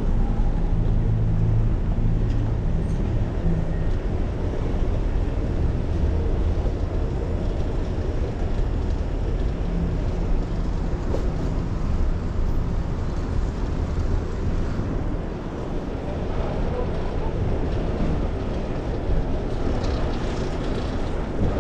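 Steady wind rush on a chest-mounted action camera's microphone while riding a bicycle through city streets, mixed with road and traffic noise.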